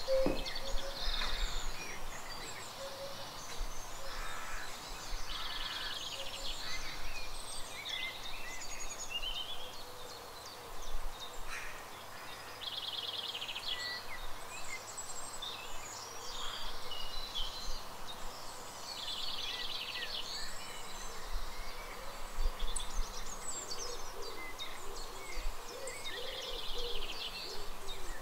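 Birdsong: small birds chirping and trilling, with a short rapid trill phrase that comes back every six or seven seconds.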